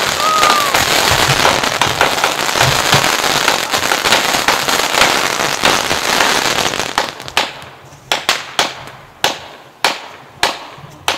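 New Year's Eve fireworks: a dense, continuous crackle of many overlapping bangs, with a short whistle near the start. About seven seconds in it thins out to separate sharp bangs, roughly two a second, each with a trailing echo.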